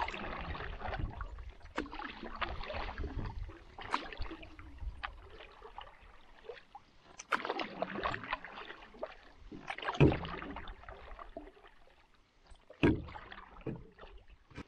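Canoe being paddled: water swishing and splashing in uneven strokes every couple of seconds, with a few sharp knocks, the loudest about ten seconds in and another about three seconds later.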